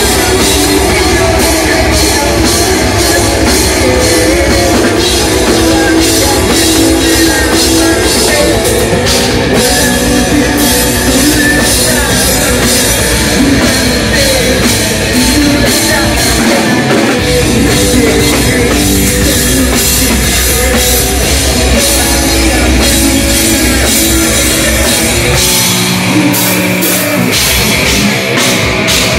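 Live rock band playing loud: electric guitar and drum kit, with a singer on vocals.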